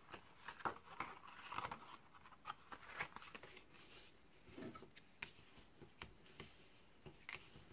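Faint paper-handling sounds: grey cardstock of a pop-up card being folded shut, pressed flat by hand and rubbed along with a bone folder, giving scattered soft rustles and light taps.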